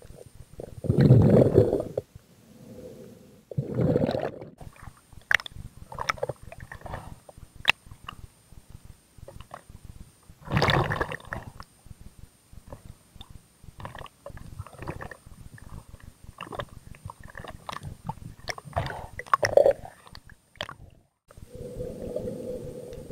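Water sloshing and gurgling around a spearfisher's camera at and just below the surface, with scattered small clicks and knocks. Louder rushes of water come about a second in, around four seconds in and about ten seconds in.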